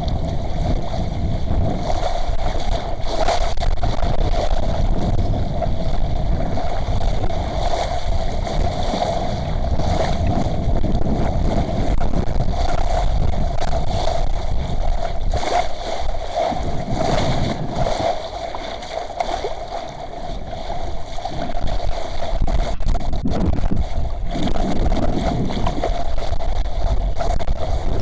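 Small sailing yacht running in a strong 10 m/s wind: wind rushing and buffeting on the microphone over water rushing along the hull, with a steady mid-pitched hum. The rumble eases briefly a little past the middle, then picks up again.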